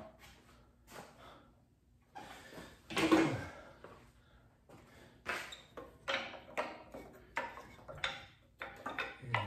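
Intermittent knocks and rattles of rubber hoses and metal piping being worked loose from the top of an engine and set down. The loudest clatter comes about three seconds in, followed by a short clatter roughly once a second.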